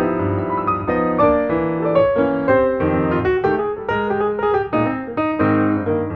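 Background piano music, a steady run of notes changing several times a second.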